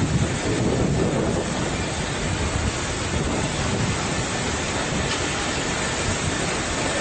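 Steady rumbling hiss of a Boeing 737-700's cabin noise, heard from inside the aircraft.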